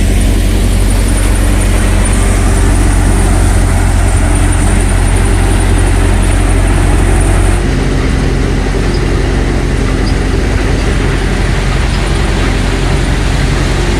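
Paddy thresher running steadily, a loud continuous machine drone with a strong low hum. About halfway through, a faint high whine drops out and it becomes slightly quieter.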